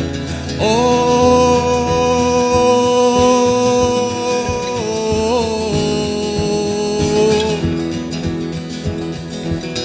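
Live acoustic guitar music with a long wordless sung note under a second in, then a slightly lower held note that ends a couple of seconds before the verse resumes.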